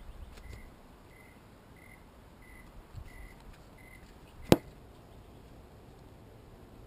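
A single sharp knock about four and a half seconds in, the handheld camera striking the truck in its wheel well. Under it, a short high chirp repeats about every three-quarters of a second until the knock, and a low handling rumble fades out early on.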